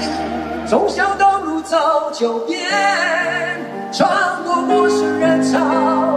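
Male pop duo singing a ballad live, the lead voice held with vibrato, over acoustic guitar accompaniment.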